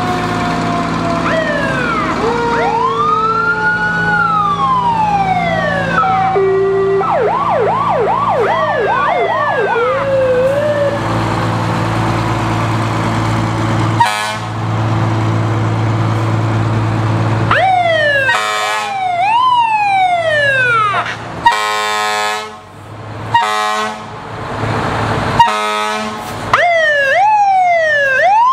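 Antique fire engines sounding their sirens: several wailing sirens rising and falling over one another, with a fast yelping siren about a quarter of the way in, over the steady running of the trucks' engines. In the last third the sirens wind up again between short steady horn blasts.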